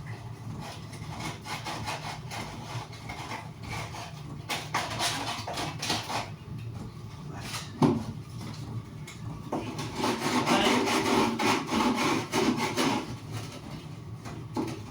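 Sandpaper rubbing back and forth in uneven strokes over the rough cut edge of a hole in a wooden box. There is a single knock about eight seconds in, and the rubbing is louder for a few seconds after the ten-second mark.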